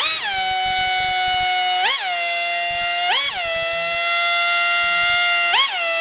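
Work Zone 3-inch pneumatic cut-off tool, no disc fitted, running free at speed with a steady high whine, its pitch briefly surging and settling back four times. It won't shut off when it should: the throttle valve is sticking, which the owner thinks may just need a bit of oil.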